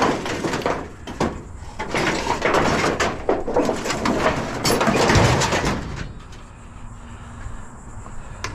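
Scrap metal clattering and scraping as pieces are handled and loaded, a run of knocks and scrapes that dies down about six seconds in.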